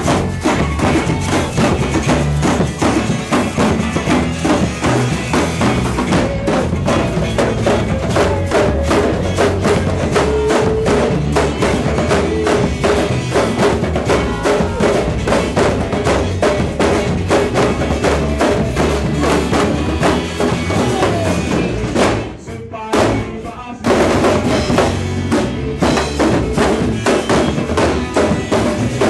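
Music carried by drums and percussion, a dense run of quick beats. It breaks off briefly about three-quarters of the way through, then comes back in.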